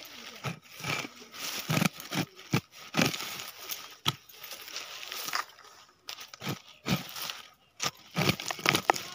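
Hand-weeding with a khurpa (short hand hoe): more than a dozen uneven scrapes and crunches as the blade digs into dry soil, with dry weed stalks rustling close to the microphone.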